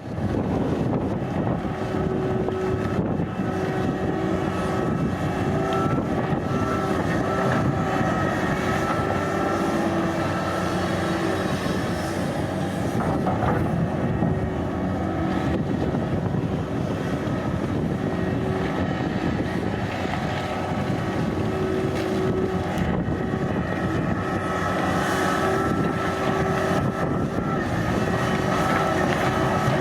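Komatsu PC1250 excavator's large diesel engine and hydraulics running steadily, with a steady whine that fades in and out over the engine noise.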